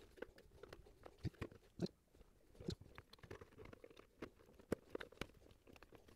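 Faint, irregular clicks and light knocks of a portable radio's chassis, parts and cabinet being handled and fitted together by hand.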